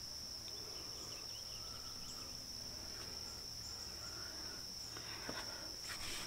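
A steady, high-pitched insect trill, with a few faint clicks near the end.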